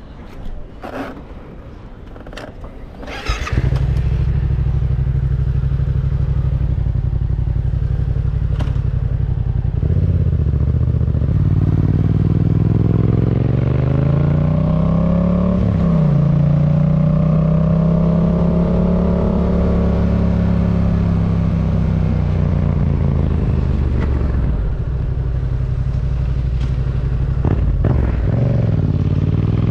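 2019 Yamaha MT-07's parallel-twin engine through a Yoshimura R77 carbon-fibre exhaust, starting about three and a half seconds in after a few clicks and knocks. It idles briefly, then pulls away with revs climbing and dropping at a gear change, runs steadily, and has the throttle eased off and reopened near the end.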